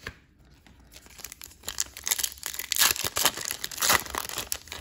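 Foil wrapper of a trading-card pack being torn open and crinkled by hand, starting about a second in with a run of crisp crackling tears.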